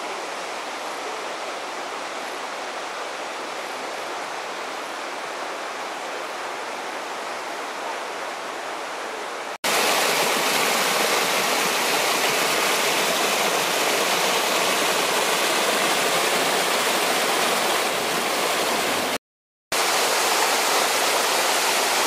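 Mountain stream water rushing and splashing over rocks in a small waterfall cascade: a steady, even rush, much louder from about ten seconds in, broken off for half a second near the end and then going on.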